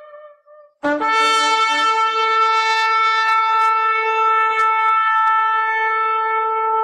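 A previous horn note fades out, then just under a second in a single long horn blast starts sharply and is held steadily on one note with a rich, buzzy set of overtones.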